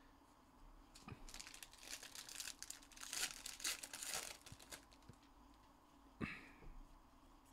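Wrapper of a Panini Contenders Baseball hobby pack being torn open and crinkled by hand, several seconds of crackling, loudest a little past the middle. A single sharp click follows near the end.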